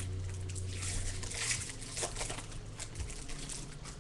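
A trading card pack being opened and handled: rustling and crinkling of the wrapper and cards, with small clicks and a louder rustle about a second and a half in.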